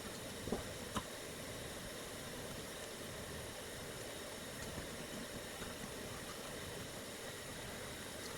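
Steady background hiss with two light clicks, about half a second and one second in.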